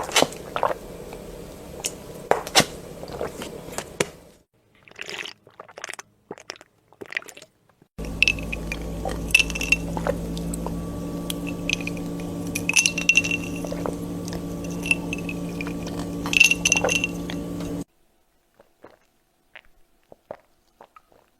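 Drinking from a glass: the glass clinks and knocks, with wet liquid sounds, over a steady hum that runs from about 8 s in and cuts off suddenly near the end.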